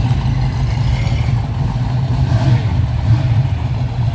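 A car engine idling close by: a steady, loud low rumble.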